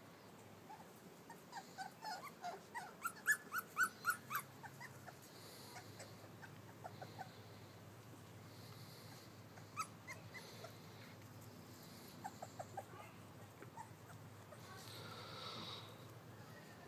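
Three-and-a-half-week-old Llewellin setter puppies whimpering and yipping: a quick run of short high calls during the first few seconds, then a few fainter scattered ones later.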